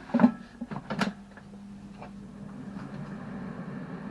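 An air fryer basket is slid back into a Salter XL 4.5 L air fryer with a few clunks. About a second in, the fryer's fan starts and runs with a steady hum.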